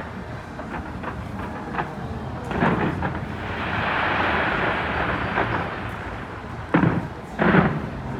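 Fireworks exploding: a loud burst about two and a half seconds in, then a steady hiss for a few seconds, then two more bursts close together near the end.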